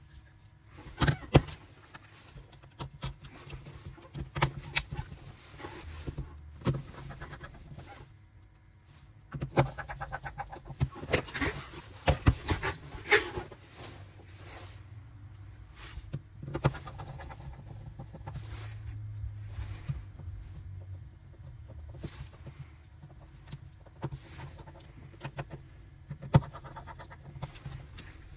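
Irregular clicks and taps of small hand tools and phone parts being handled during a phone repair, over a steady low hum. The taps come thickest about ten to thirteen seconds in.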